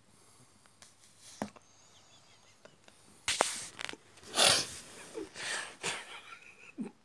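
A person snoring: after a few quiet seconds come irregular rasping snorts and breaths, the loudest about four seconds in.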